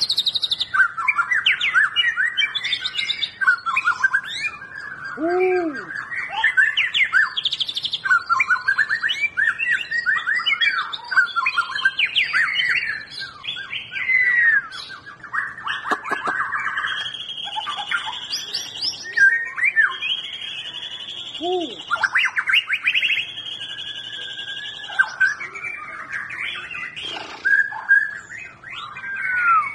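White-rumped shama singing a long, varied song of quick whistled phrases and trills, with several long held high notes in the second half.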